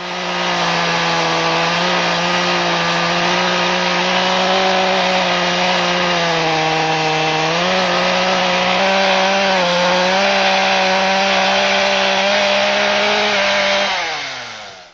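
Chainsaw running at high speed under load, cutting lengthwise through wood in a chainsaw mill. The engine note stays steady with a couple of brief pitch shifts, then winds down near the end as the throttle is released.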